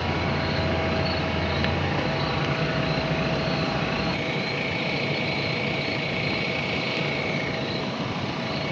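Heavy diesel machinery running steadily. A thin high whine comes in about four seconds in and fades out near the end.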